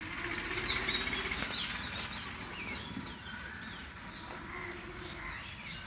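Several birds chirping and calling, a busy run of short notes that swoop up and down in pitch.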